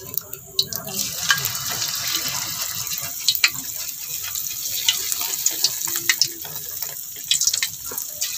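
Hot cooking oil in a wok sizzling as a spoonful of food fries in it. The sizzle builds up about a second in and holds steady, with many scattered crackles and pops.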